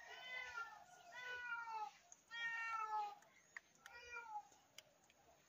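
A cat meowing four times, each meow falling in pitch.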